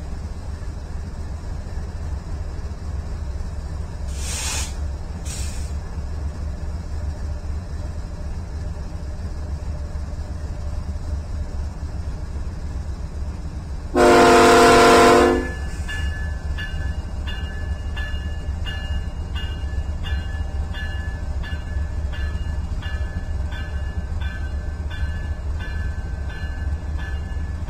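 A BNSF freight locomotive's air horn sounds one loud, chorded blast of about a second and a half, over the steady low rumble of the approaching train. Right after the blast, a grade-crossing bell starts dinging steadily, about one and a half strokes a second.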